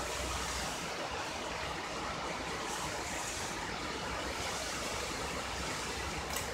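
Steady background hiss with a faint low hum, and one small click near the end.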